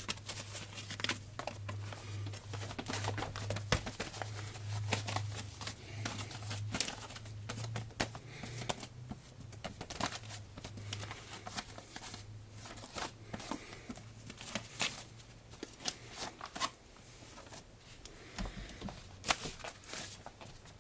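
Irregular crinkling and rustling with sharp little clicks from a cat at play, over a low steady hum that fades out about halfway through.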